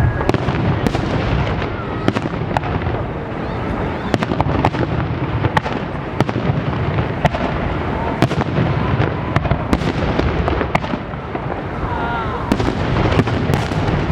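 A fireworks display: sharp bangs go off irregularly, often one or two a second, over a continuous dense crackle.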